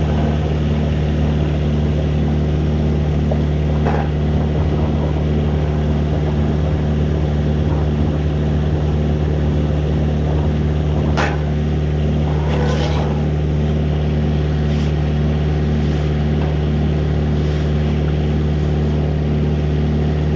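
Drain jetter's engine-driven high-pressure pump running steadily: a constant drone with an evenly pulsing undertone, and a few brief clicks along the way.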